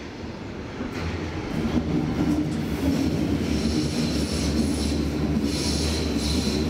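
Berlin U-Bahn train on the U2 line, its rumble swelling about a second in and then holding steady. High-pitched wheel squeal joins in the second half.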